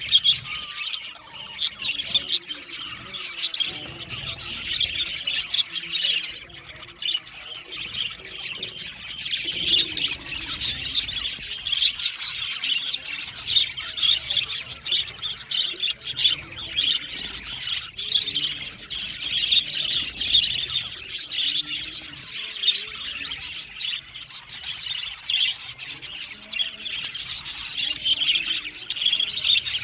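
A flock of budgerigars chattering: many rapid overlapping chirps and warbles with occasional squawks.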